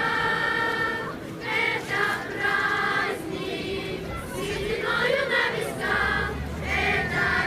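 A choir singing a song, its voices holding sung phrases over steady lower held notes.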